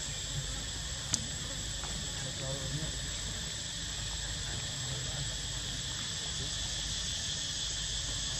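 Steady chorus of insects: a continuous high-pitched drone at two high pitches, with one sharp click about a second in.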